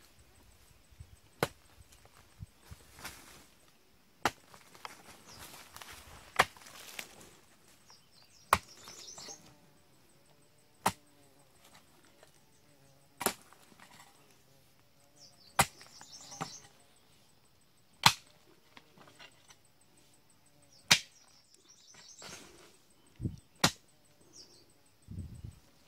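A hoe's blade chopping into earth: a sharp strike about every two to three seconds, with soil scraping and crumbling between some strikes.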